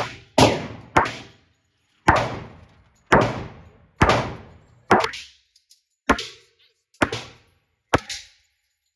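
Glock pistol fired shot by shot at a steady pace of about one shot a second, ten shots in all. Each sharp crack trails off in a short echo.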